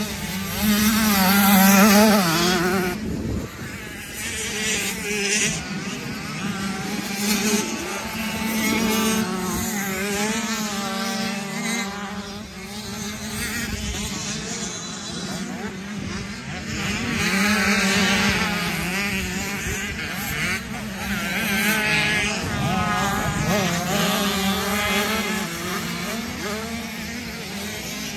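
Motocross motorcycle engines racing, revving up and down through gear changes and corners, with the loudest swell about two seconds in.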